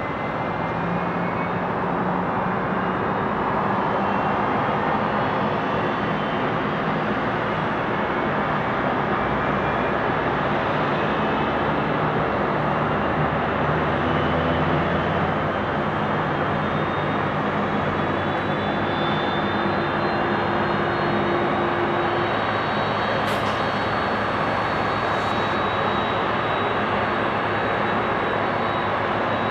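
Boeing 767 freighter's jet engines running during pushback: a steady roar with a whine that rises slowly in pitch.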